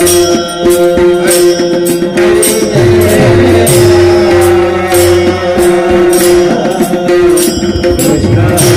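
Devotional kirtan music: a steady held drone note with cymbals and drum keeping a regular beat.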